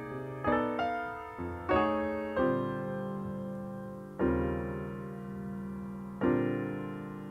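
Piano playing slow chords, each struck and left to ring and fade: several in quick succession in the first couple of seconds, then two long held chords about two seconds apart.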